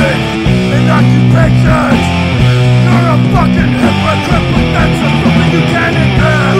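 Loud punk rock music from a band's tape recording, with held chords that change about half a second in and again around four seconds.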